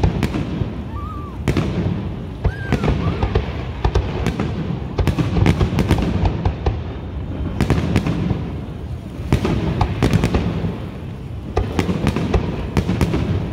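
Professional aerial fireworks display: shells bursting in rapid succession, many sharp bangs over a continuous low rumble.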